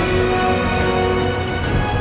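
Background music with sustained instrumental chords.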